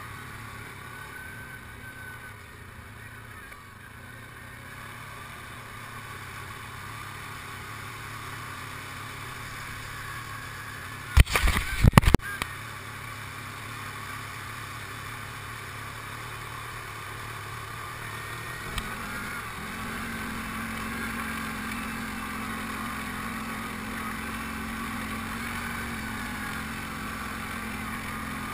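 Quad ATV engine running steadily while riding, with a brief burst of loud knocks about eleven seconds in. About nineteen seconds in the engine note steps up and runs a little louder.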